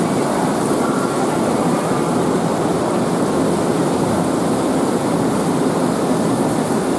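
Steady rushing roar of a heavy cloudburst downpour, unchanging in level throughout.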